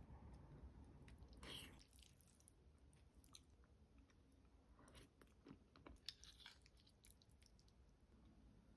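Faint eating sounds over creamy pasta: chewing, with small scattered clicks of a metal fork against a spoon as the noodles are twirled.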